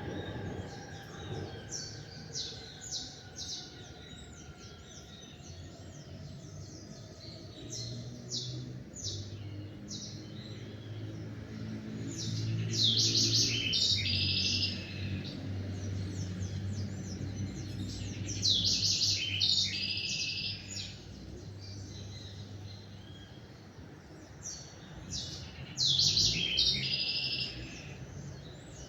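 Small songbirds chirping and singing in short repeated phrases, with louder bursts of song about halfway through and again near the end. A low steady hum, like a distant engine, runs underneath through the middle, and a falling tone fades out in the first few seconds.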